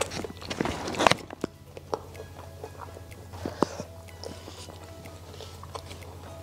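Close-up eating sounds: wet chewing and a crunchy bite about a second in, then softer chewing and fingers picking at fried food.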